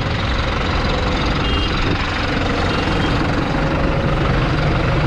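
New Holland TD100D tractor's diesel engine idling steadily.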